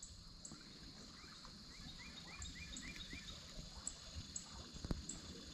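Faint outdoor ambience with birds calling: a run of about six quick short notes in the middle and scattered high chirps, over a steady high hiss. A faint knock comes near the end.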